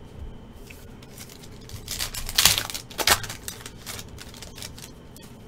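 Foil trading-card pack being torn open and crinkled by hand: a few sharp crackling rustles, loudest about two and a half seconds in and again a moment later.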